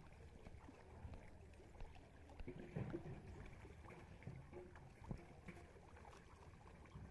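Faint splashing and sloshing of water from a mass of pangas catfish thrashing in a net, with scattered soft thumps.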